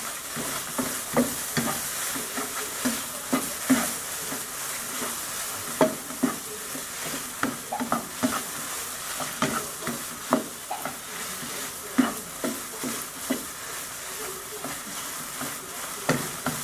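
Mashed potato and ham frying in a pan, a steady sizzle, with a spatula scraping and knocking against the pan at irregular intervals as the food is moved around.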